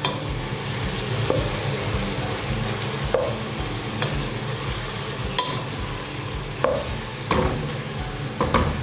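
Chicken pieces frying in oil in a coated pot, sizzling steadily, while a wooden spatula stirs them, scraping and knocking against the pot about half a dozen times.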